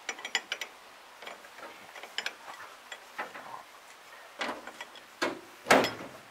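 Hand ratchet wrench clicking in short runs as a bolt on a round baler's chain-drive tensioner is turned. A few louder metal knocks come in the second half, the loudest about a second before the end.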